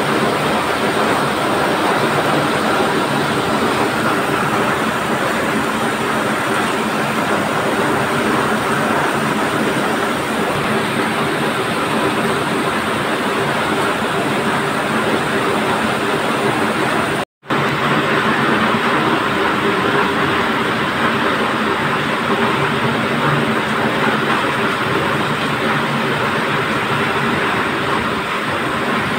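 Muddy floodwater from heavy rain rushing steadily down a rocky slope and through a stone channel, with a split-second dropout about two-thirds of the way through.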